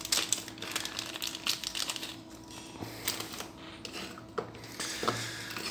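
Small clear plastic bag crinkling as it is pulled open by hand, dense crackling at first. Scattered lighter rustles and clicks follow.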